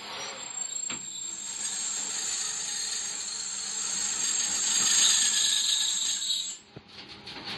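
Double-head ultrasonic plastic welding machine running on plastic thatch strips: a steady high-pitched whine with hiss that grows louder to about five seconds in, then cuts off abruptly near the end.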